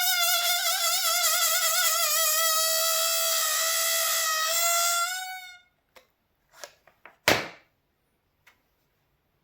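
A rubber balloon squealing as air escapes through its stretched neck: a loud, high, wavering whine that fades out about five and a half seconds in. After it come a few light clicks and one louder knock.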